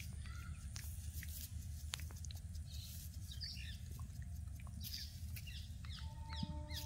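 Faint high chirps of small birds in bursts over a low steady rumble, with scattered soft clicks.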